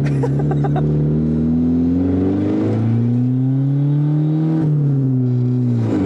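Honda Civic four-cylinder engine heard from inside the cabin under acceleration: the revs climb steadily, then drop sharply at a gear change a little past four and a half seconds in, and sag again toward the end.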